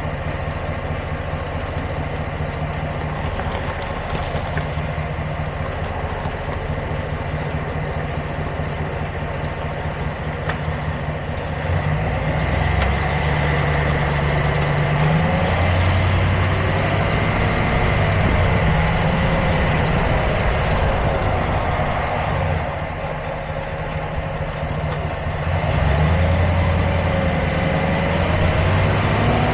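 Vehicle engine idling, with its speed raised about twelve seconds in, eased back briefly later, and raised again near the end.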